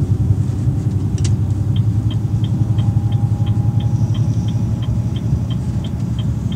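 Steady low rumble of a Renault truck's diesel engine and tyres heard inside the cab while driving on the motorway. A single click comes about a second in, then a run of evenly spaced light ticks, about three a second, lasting roughly four and a half seconds.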